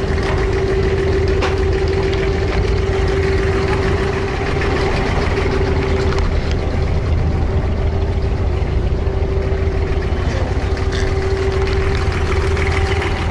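Diesel engine of a wooden abra water taxi idling steadily at the pier, an even low hum with no change in speed.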